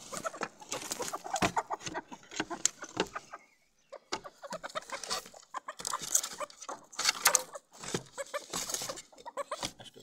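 Chickens clucking while being handled, with rustling and clattering from the birds and the pen.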